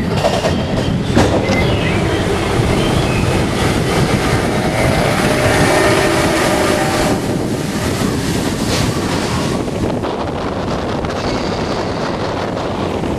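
Expedition Everest roller coaster train rolling along its steel track: a steady rumble and clatter of wheels on rails, with a squeal of the wheels in the middle.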